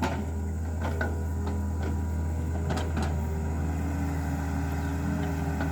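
Excavator diesel engine running steadily at low revs, a deep, even hum, with a few light clicks or knocks in the first few seconds.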